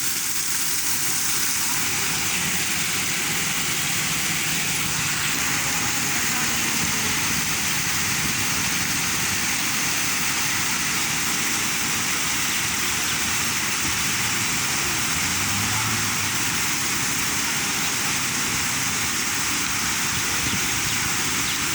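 Steady hiss of water rushing out of a leaking water pipe, unbroken and even in level.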